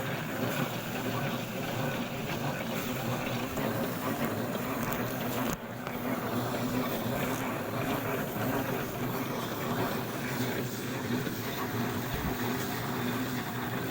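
Engine of a harvesting machine running steadily, with a brief drop about five and a half seconds in.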